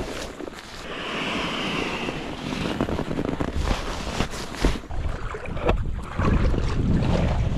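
Wind buffeting the microphone and water lapping in the shallows while an inflatable raft is handled at the water's edge. Scattered knocks and rustles come from about three seconds in, and a heavier low rumble of wind comes near the end.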